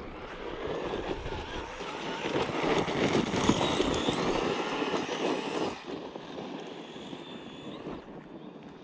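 Redcat Racing Kaiju EXT electric RC monster truck running flat out on dirt, with motor whine and tyre noise. It builds to a peak about three seconds in, then falls away sharply near the six-second mark as the truck runs off.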